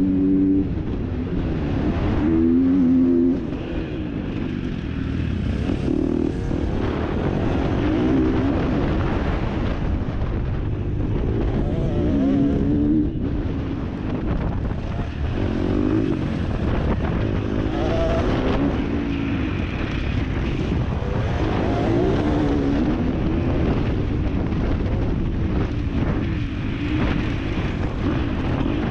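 Motocross bike engine revving up and down again and again, its pitch climbing and dropping every second or two as the throttle opens and closes, over a steady low rumble.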